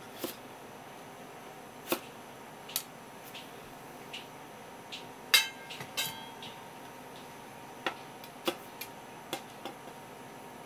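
Kitchen knife knocking on a wooden cutting board as a small green citrus is cut, single sharp taps spaced a second or so apart. About halfway through comes the loudest sound, a ringing clink of the citrus wedge being set on a porcelain plate of crushed ice. Near the end there is a quicker run of light knife taps on the board.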